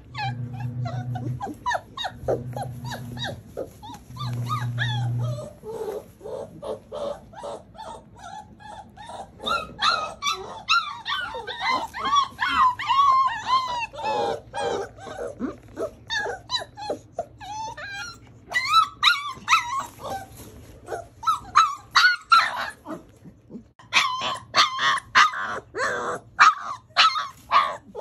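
Litter of four-week-old puppies play-fighting, giving a constant stream of short high-pitched yips and squeals, thickest in the second half.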